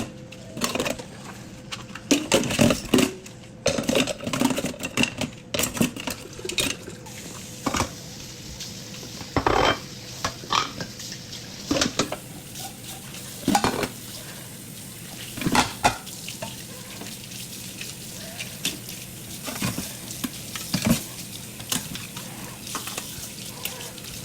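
Kitchen utensils and dishes clinking and knocking in an irregular clatter, with louder bunches of knocks about two seconds in, near the middle and a little after.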